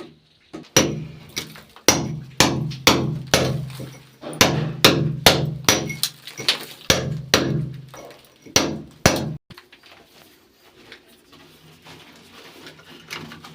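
Repeated loud hammer strikes, about two a second, that stop suddenly about nine seconds in.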